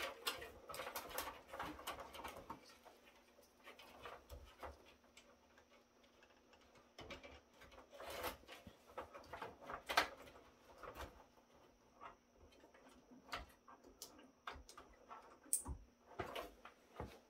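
Faint, irregular clicks and rustling of cables and plastic connectors being handled and routed inside an open rackmount server chassis, with a sharper click about ten seconds in.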